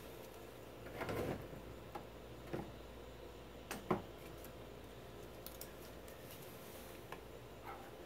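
A few light knocks and clicks of hand tools being handled and set down on a concrete floor, the loudest about a second in and just before four seconds in, over a faint steady hum.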